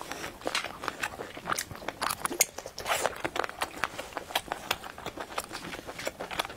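Close-up mouth sounds of a person chewing spicy seafood: irregular wet, crunchy clicks and smacks. Shellfish shell crackles as gloved hands pull it apart.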